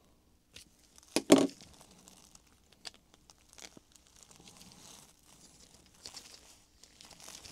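Gloved hands handling small 3D-printed plastic puzzle pieces and a glue bottle: scattered light ticks and rustling, with two sharp clicks about a second in.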